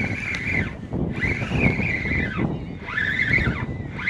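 Spinning reel being cranked in four spells of about a second each, its gear whine rising in pitch as each spell starts and dropping as it ends, over wind buffeting the microphone.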